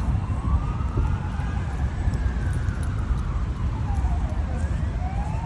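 Emergency vehicle siren wailing: its pitch climbs slowly, sinks over the next couple of seconds and starts climbing again near the end. It sits over a dense, steady rumble of heavy road traffic.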